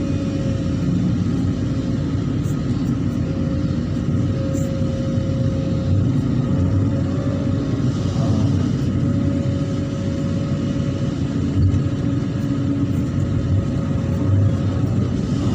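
Hydraulic excavator's diesel engine running steadily under working load: a continuous low rumble with a steady whine above it.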